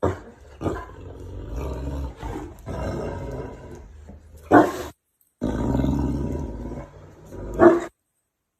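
An animal's calls and growls in short clips cut apart by sudden silences. The loudest calls come about four and a half and about seven and a half seconds in.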